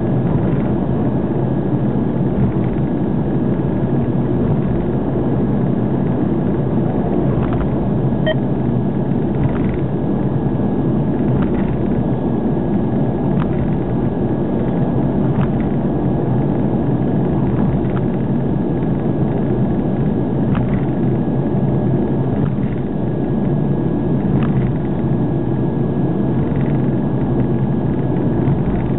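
Steady road and engine rumble inside a car cruising on an expressway, with faint ticks every two seconds or so.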